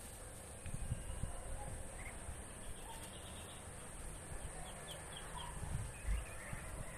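Backyard ambience: a steady high insect drone with small birds chirping briefly here and there. Low rumbling thumps, loudest about a second in and again near the end, come from the phone being moved.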